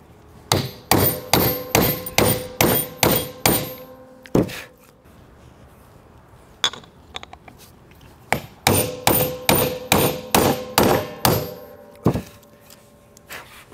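Hammer striking a bearing driver to drive a new carrier bearing onto a Nissan M226 differential carrier. There are two runs of about eight quick metallic blows, each ringing briefly, with a pause of a few seconds and a couple of lighter taps between them.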